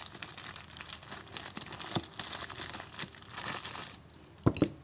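Plastic packaging crinkling and rustling with small clicks as large electrolytic capacitors are handled, then a couple of sharp knocks near the end as a capacitor is set down on the circuit board.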